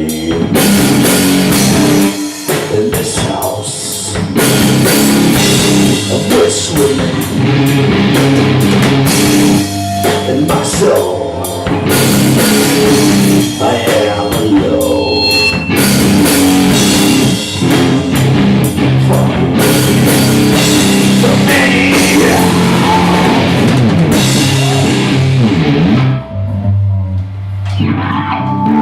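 Loud rock music with a drum kit and guitar, with a short lull near the end.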